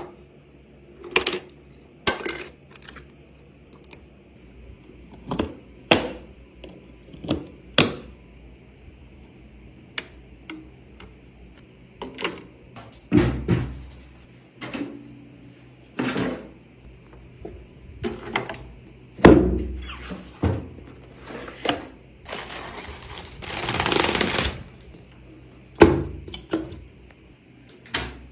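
Handling sounds from assembling a PC: irregular clicks, knocks and thunks of parts being set down and fitted. A scraping rustle lasts about a second and a half near the end.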